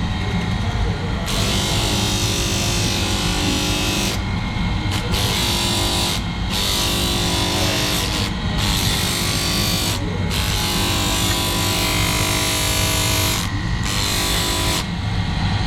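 Electric power tool running steadily on steel, a grinding hiss over the motor hum that breaks off briefly several times, as when the work lifts off and goes back on.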